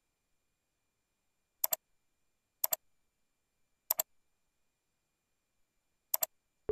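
Computer mouse button clicks, four of them at uneven intervals, each a quick double tick of press and release.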